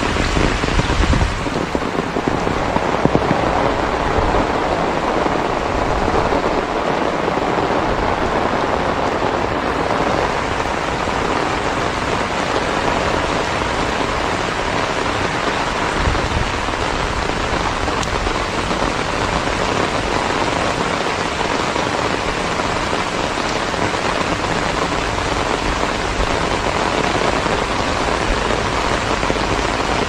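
Heavy rain falling steadily onto a wet, muddy road and its puddles, a dense even hiss. In the first few seconds wind gusts rumble on the microphone.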